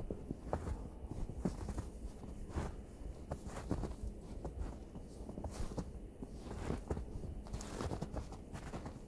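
Footsteps crunching in snow at a steady walking pace, about one step a second.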